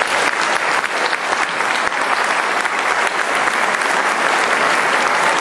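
Crowd applause: many hands clapping steadily in a hall, from the audience and the people on stage.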